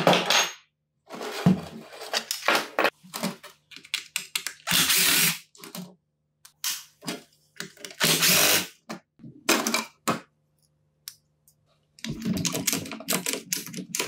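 Hand disassembly of an old Makita HM0811 demolition hammer's switch and handle: irregular clicks, taps and clatter of plastic and metal parts as a screwdriver works the switch screws. There are a couple of longer scraping sounds about five and eight seconds in.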